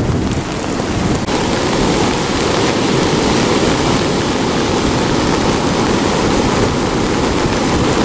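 Stormy sea: heavy surf breaking on a sand beach, with wind buffeting the microphone. It is a steady, dense wash of noise that turns fuller and hissier about a second in.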